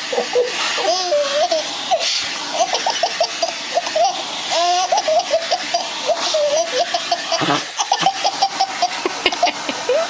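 A baby laughing in quick repeated bursts of high giggles and belly laughs.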